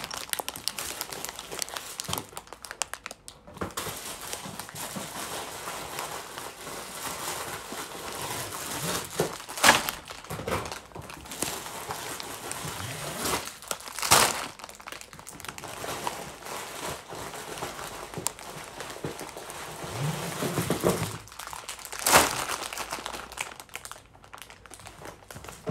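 Clear plastic bags full of Lego pieces crinkling and rustling as they are handled, with a few sharper, louder crinkles spread through.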